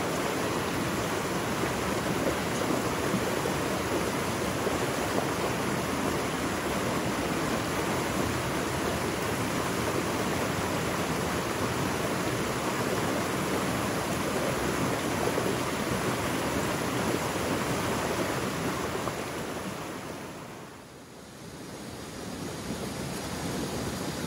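Steady rush of a flowing stream. It dips in level about twenty seconds in, then returns.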